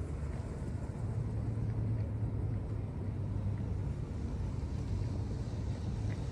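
Steady low rumble of a vehicle engine running, with a held low hum under road or wind noise.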